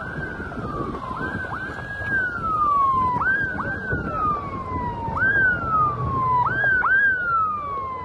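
Emergency vehicle siren wailing. Each cycle rises quickly and falls away slowly, and it restarts about eight times at uneven intervals, sometimes before the previous fall has ended.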